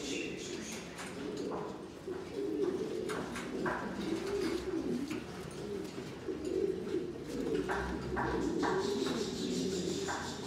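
Buchón Gaditano pouter pigeons cooing continuously, a low rolling coo, with a few short taps among it.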